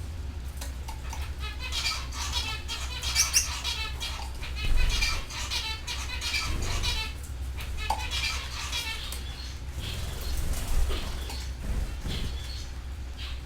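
Several canaries chirping and singing in quick trills, busiest in the first half, with scattered clicks and wing flutters. A steady low hum runs underneath.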